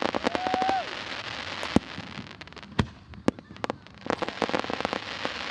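Aerial fireworks bursting: sharp bangs and pops over dense crackling, with a short whistling tone about half a second in. The crackling is thickest at the start and again in the last second and a half.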